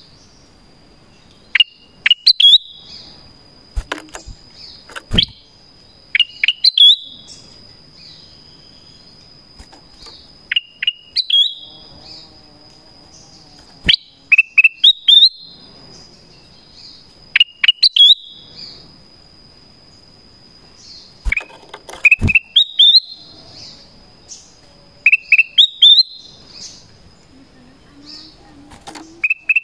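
Black-crested bulbul calling again and again: loud short phrases of a few quick whistled notes, one every few seconds, over a steady high thin whine in the background. A few sharp clicks fall between the phrases.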